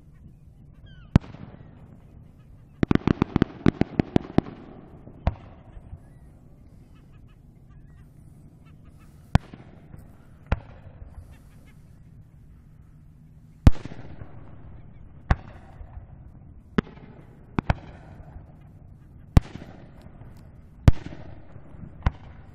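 Aerial firework shells bursting, heard from about a kilometre away. About a dozen single booms come a second or more apart, each trailing off in an echo. A quick volley of about ten sharp reports comes around three to four seconds in.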